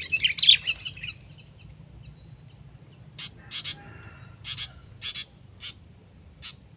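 Sooty-headed bulbuls (kutilang) calling: a burst of rapid, chattering calls in the first second, then about six short single calls spaced roughly half a second to a second apart.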